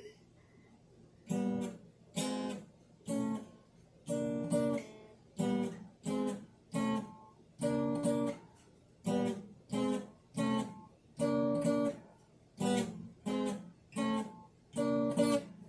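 An old acoustic guitar strummed in about twenty separate chord strokes from about a second in, each chord ringing briefly and dying away before the next, with the chords changing as it goes.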